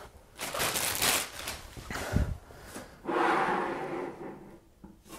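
Plastic wrapping rustling and crinkling in two stretches as an integrated amplifier is pulled out of its plastic bag, with a short dull thump about two seconds in.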